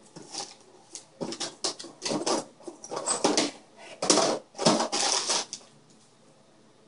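Someone rummaging through tools and parts in search of a spool of solder: a run of irregular clatters and rustles, the longest and loudest about four to five seconds in.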